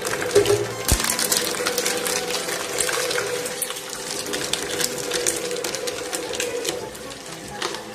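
Meat grinder running with a steady hum, and irregular crackling and clicking as something is crushed through it, with a sharp knock about a second in.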